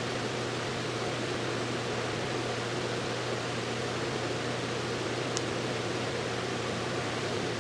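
Steady background hiss with a constant low hum, such as a fan or air handler running in a small workshop room, and a faint tick about five seconds in.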